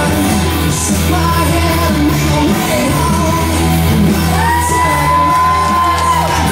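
Loud song with singing over a steady bass line, with one long held sung note near the end.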